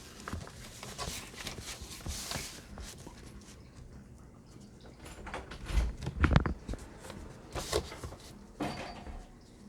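Paper and craft tools being handled on a tabletop: scattered taps and light rustles, a short swish of paper about two seconds in, and a couple of louder knocks about six seconds in.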